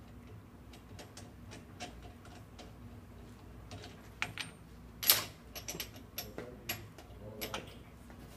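Scattered metal clicks and clinks of a brake rotor, its centring cone and adapters being handled and reseated on an Ammco brake lathe's arbor. The loudest clink comes about five seconds in, followed by a quick run of lighter clicks.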